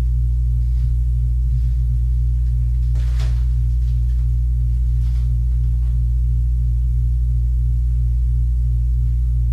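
A steady low hum throughout, with a few faint brief scuffs about three and five seconds in.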